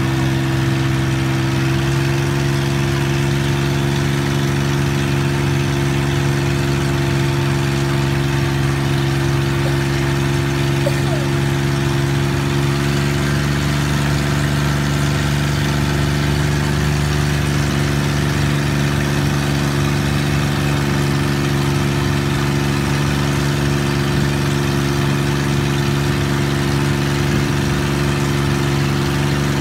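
Engine of a Thai long-tail boat running steadily as the boat cruises, one even, unchanging drone.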